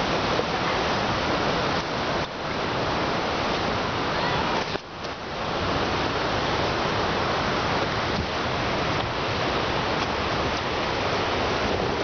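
Steady rushing roar of a waterfall in heavy flow, dipping briefly about five seconds in.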